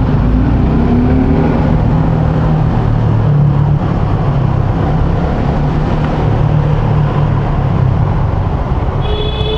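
Motorcycle engine running steadily while riding, mixed with loud wind and road noise. A steady high tone begins near the end.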